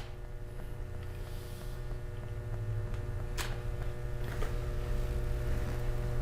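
Steady low electrical hum with a few faint steady tones above it, growing slightly louder, and a couple of faint clicks.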